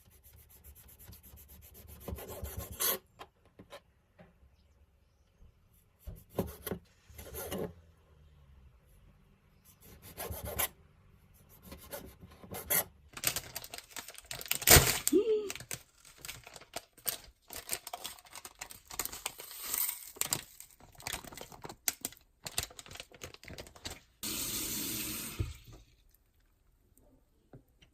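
Intermittent scraping and rubbing noises with scattered knocks and clicks, in uneven bursts with short pauses between them; one sharper knock about halfway through is the loudest.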